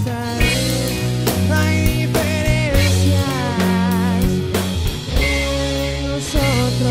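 Rock band playing a ballad live: electric guitar lines over bass guitar and a steady drum kit beat.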